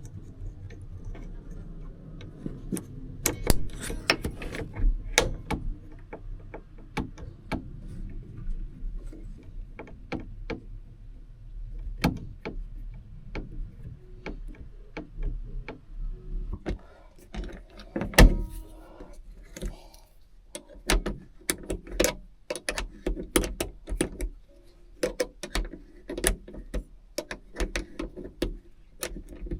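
Irregular metallic clicks, clinks and knocks from hand work on a Mazda MX-5 (NA) hardtop catch lock, which has just been found still not closing. A louder knock comes about eighteen seconds in.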